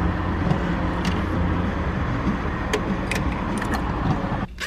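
Steady engine and road noise of a car driving, heard from inside the cabin, cutting off abruptly near the end.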